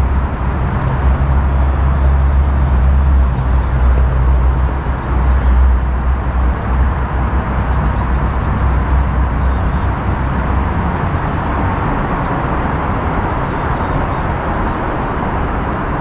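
Steady traffic noise from the Interstate 5 freeway running beneath the park, with a deep low rumble that eases off about eleven seconds in.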